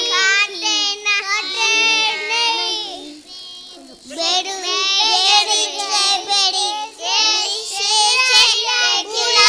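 Young children singing a song in high voices, breaking off briefly about three seconds in and starting again about a second later.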